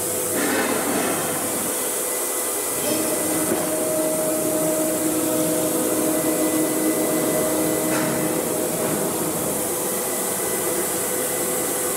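AKM1325C CNC router running: a steady whooshing whir, joined about three seconds in by a steady mechanical hum.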